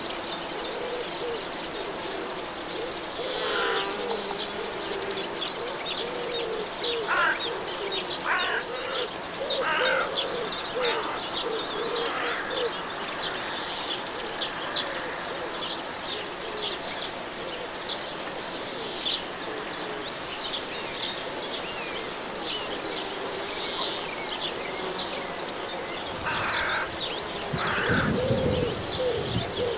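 Outdoor field ambience: birds chirping and calling throughout, with lower wavering sounds that may be calls or insect buzz, and bees buzzing among the flowers. About two seconds before the end, a louder low buzz or rumble comes in.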